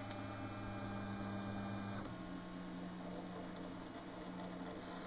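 Roland MDX-20 3D scanner running: a steady low motor hum that steps slightly lower in pitch about two seconds in, with a faint high whine joining it.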